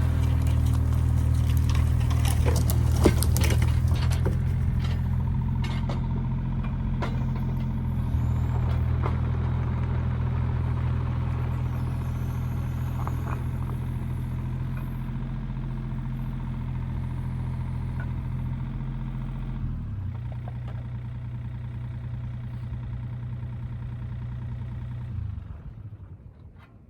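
John Deere 27D mini excavator's diesel engine running steadily, with sharp knocks and clanks over the first several seconds. The engine note drops about two-thirds of the way through, and the engine shuts off near the end.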